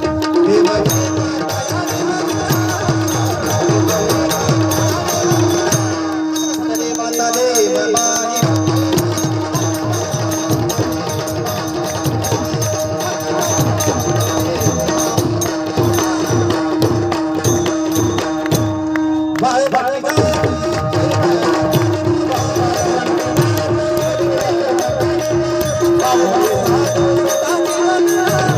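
Marathi gaulan bhajan music: tabla playing a steady rhythm under a held drone note and a melodic line. The tabla drops out about six seconds in and comes back about two seconds later.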